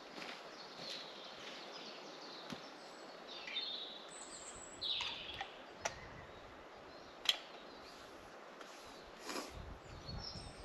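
Small woodland birds giving short, high chirps and calls now and then over a faint outdoor hush, with a few sharp clicks or knocks in between.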